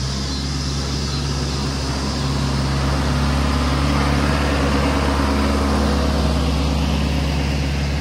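John Deere 5100E tractor's four-cylinder diesel engine running steadily as the loader tractor drives past close by, growing louder a few seconds in as it nears.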